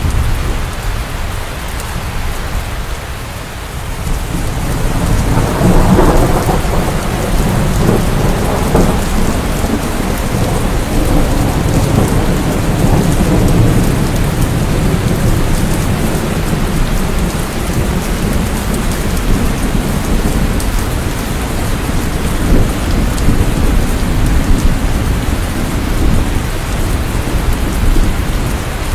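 Steady heavy rainfall with rolling thunder: a low rumble dies down over the first few seconds, then a new roll of thunder builds about six seconds in and rumbles on under the rain.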